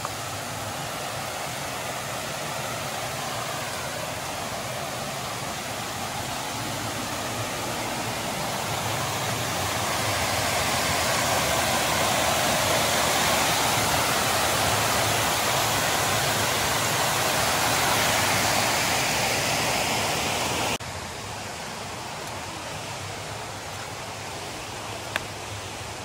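Steady rush of river water at a dam, a dense even noise that swells louder through the middle, then drops suddenly to a quieter rush about three-quarters of the way through.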